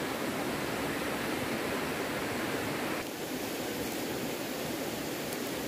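Steady rushing noise of running water, a stream or cascade close by. Its tone drops slightly about three seconds in.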